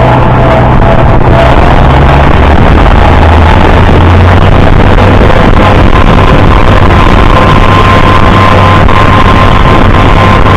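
Farmall 560 tractor engine running steadily at working speed, loud and close, with a steady whine over it; the low engine note shifts about two seconds in.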